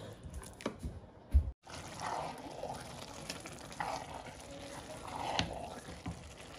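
Wooden spoon stirring wet, half-cooked jollof rice and beans in a metal pot, a wet squelching and scraping that swells every second or two. A single thump about a second and a half in.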